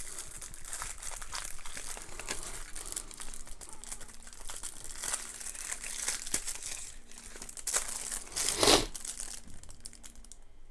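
Plastic packaging and a soft clear plastic phone case crinkling and rustling as they are handled, with one louder swish about eight and a half seconds in.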